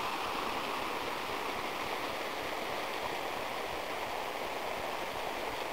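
Water rushing and splashing steadily over rocks in a fast-flowing stream: water escaping from the Sierra de Abdalajís aquifer, a sign of how much is still being lost.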